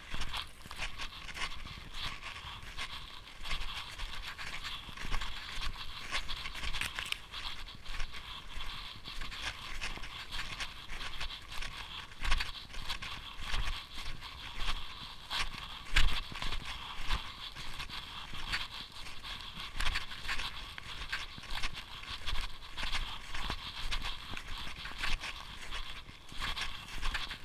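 Snowshoes crunching and scraping on snow in a steady walking rhythm, over a constant hiss.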